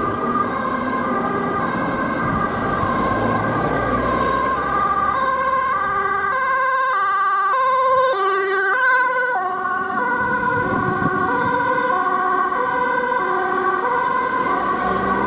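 Ambulance two-tone siren alternating between a high and a low note, loudest about eight seconds in as the ambulance passes close, when its pitch drops as it goes by; traffic noise runs underneath.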